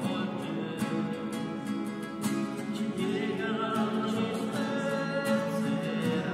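Three acoustic guitars strummed together in steady rhythm, accompanying voices singing a hymn.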